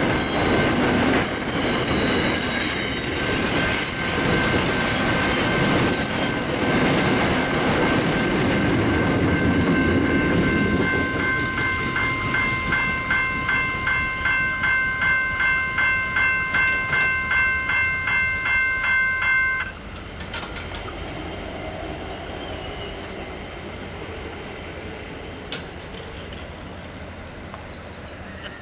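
A train running past with a loud rumble and steady high-pitched squealing. Then a ringing tone pulses about twice a second for some eight seconds and cuts off suddenly, leaving a quieter background.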